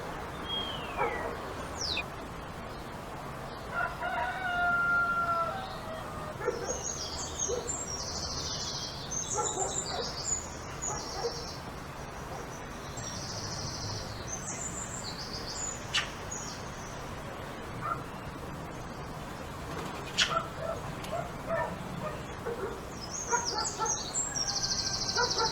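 Village ambience with a rooster crowing once, about four seconds in, and small birds chirping in quick high bursts, first a little after that and again near the end. A brief falling whistle comes about a second in, and two sharp clicks come later.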